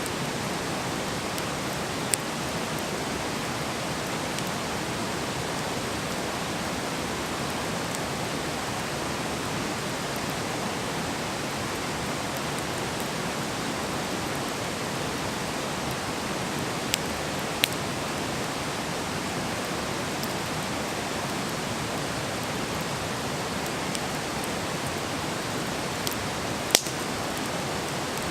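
Wood campfire burning: a steady hiss with a few sharp crackling pops of burning wood, the loudest near the end.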